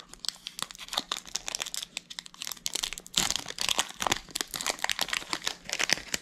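Pokémon card booster pack's foil wrapper being torn open and crinkled by hand: a rapid run of crackles, loudest about three seconds in.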